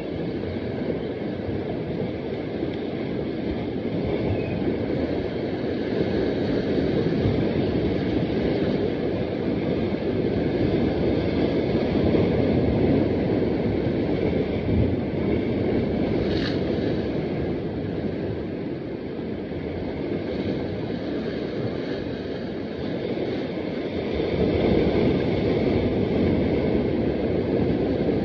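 Steady rush of wind buffeting the microphone over sea surf washing against rocks, swelling and easing slowly, with a single brief click about sixteen seconds in.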